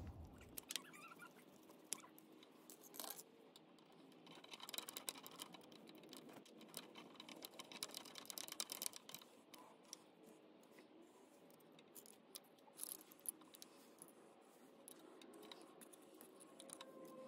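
Near silence with faint, scattered clicks and taps of a screwdriver and fingers working on a small motorcycle's stator plate and its wiring.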